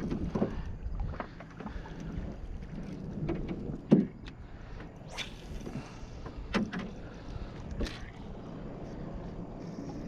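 Scattered knocks and clunks on an aluminum fishing boat, the loudest about four seconds in, over a low rumble of wind.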